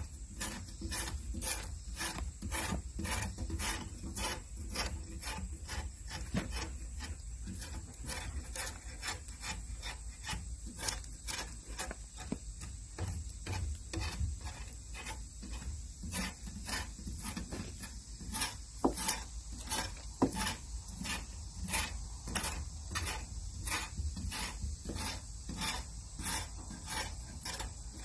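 A hand tool scraping or cutting along a wooden log in steady back-and-forth strokes, about two a second.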